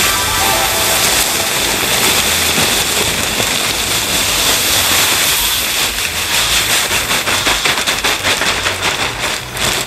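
Rice husks pouring out of a large plastic bag onto a bed of husks, a steady loud hiss that turns grainier and crackly over the last few seconds.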